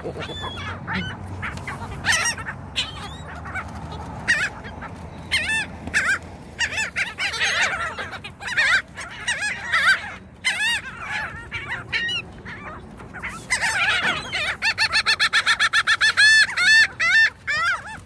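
A flock of laughing gulls calling, with many short, nasal calls overlapping. In the last few seconds one gull breaks into a fast, even run of about six notes a second, the species' laughing call.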